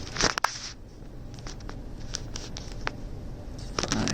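Rustling and light clicking of cables being handled and looped through during a network rack install: a burst of rustling at the start and again near the end, with scattered small ticks between.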